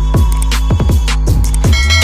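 Background electronic music with a deep, sustained bass and a steady beat of punchy kick drums.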